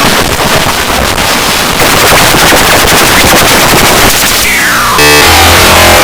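Loud, heavily distorted mash-up of edited logo sound effects. A dense, rapid crackling clatter runs through most of it, a whistle glides downward about four and a half seconds in, and a loud buzzing tone with many overtones follows near the end.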